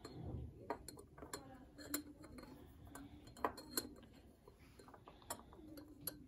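Alligator-clip leads being clipped onto metal electrode strips in a glass beaker: scattered light clicks and taps of metal on metal and glass, about one every second or so.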